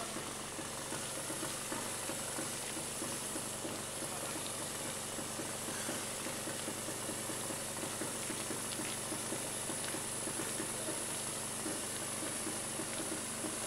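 Steady outdoor background hiss with a faint low rumble underneath, and no distinct event.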